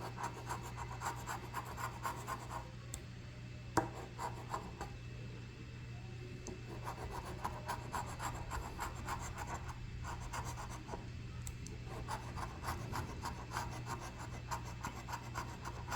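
Scratch-off lottery ticket being scratched: runs of quick short scraping strokes with a few brief pauses, and one sharp tap about four seconds in.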